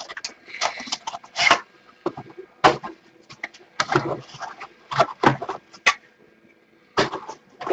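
Crackling and rustling of trading-card packaging being torn open and handled: a sealed box of cards and its plastic wrap being opened, in a string of irregular sharp crinkles.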